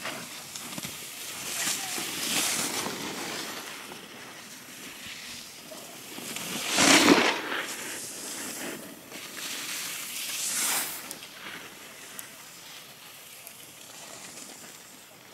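Skis scraping and hissing over packed snow as skiers pass, heard as three swooshes that swell and fade. The loudest comes about seven seconds in.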